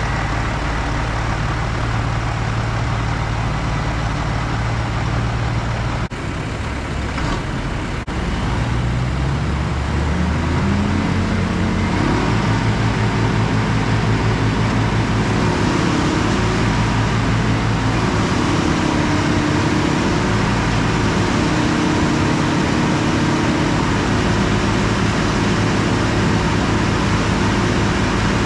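Diesel farm machinery running steadily during corn silage harvesting. About ten seconds in, the engine speed climbs and then holds at the higher speed.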